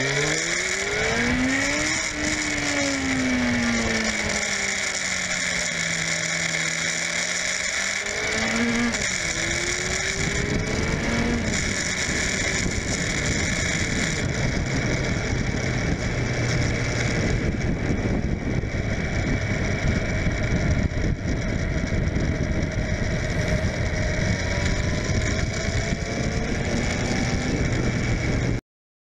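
2004 Suzuki GSF600 Bandit's inline-four engine riding along, its pitch rising as it accelerates, falling back, then rising again before settling into a steady cruise, over constant wind and road noise. The sound cuts off abruptly near the end.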